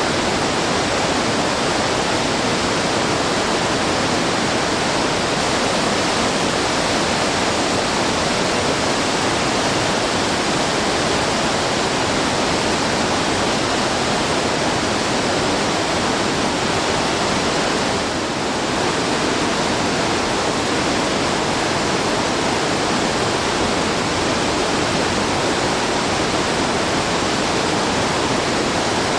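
Waterfall pouring and splashing in a steady, loud rush of water.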